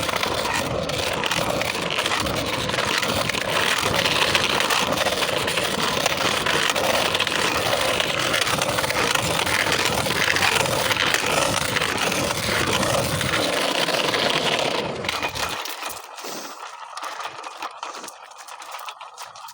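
Scooter rolling over pavement with a steady scraping rattle that stops about fifteen seconds in.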